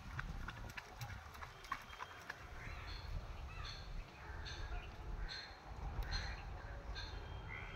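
Birds calling over and over in short calls, about one or two a second from a few seconds in, over a steady low rumble.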